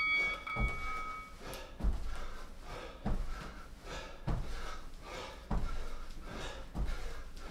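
An interval timer's start beep rings out and fades in the first second or so, then bodyweight jump squats land on an exercise mat with a dull thud about every 1.2 seconds, six in all, with breath between landings.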